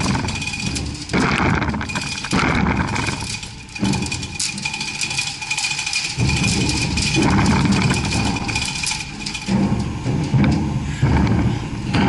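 A heavy Marley Geareducer gearbox being shifted on steel floor grating, scraping and knocking in irregular bursts a second or a few long. A faint steady high whine runs underneath.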